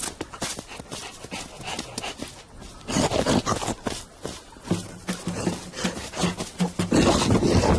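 Cartoon animal sound effects: panting and grunting with short scuffling clicks. From about five seconds in, a low pulse repeats about three times a second.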